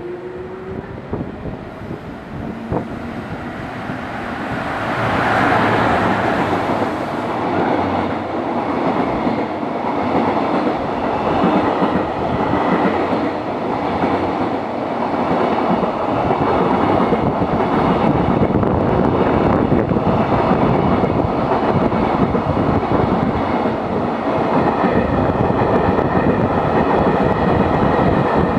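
A train running by on the rails, growing louder about five seconds in and then holding steady, with wheels clicking over rail joints.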